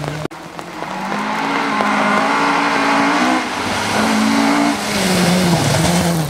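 Rally car engine revving hard and climbing in pitch as it approaches, with short lifts between gears, then passing close by as the engine note falls.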